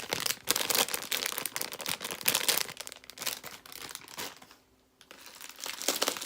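Crinkling of a squishy's plastic packaging as it is handled, with a short lull about four and a half seconds in.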